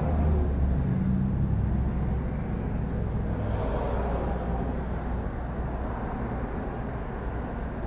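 Low, steady rumble of a motor vehicle engine running, strongest in the first couple of seconds and then easing slightly.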